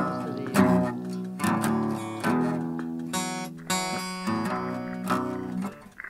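Acoustic guitar playing as background music, with a new chord or note struck about every three-quarters of a second, each one ringing on and fading before the next.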